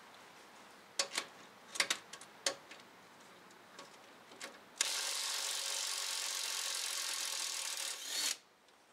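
A few sharp metal clicks as a socket is fitted on a bolt. Then, from about five seconds in, a cordless power wrench runs steadily for about three and a half seconds and stops suddenly, spinning the bolt out.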